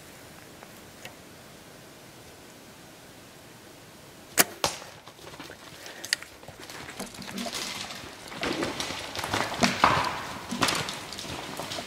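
A Mathews Triax compound bow shot about four seconds in: a sharp crack at the release, then the arrow striking a third of a second later. Then a deer crashing away through dry leaves and brush, growing louder.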